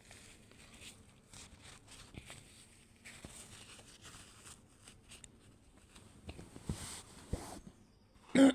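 Faint rustling and small clicks, with a few short breaths. Near the end comes a sudden loud burst from the nose and throat: the onset of a sneeze held in by pinching the nose.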